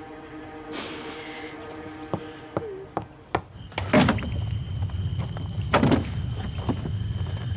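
Soft sustained film-score music, then a low steady rumble that starts about halfway through, with a couple of sharp knocks.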